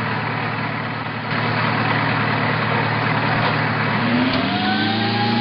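Heavy military vehicle engines running, getting louder a little over a second in. Near the end an engine revs up as a tracked self-propelled howitzer moves off.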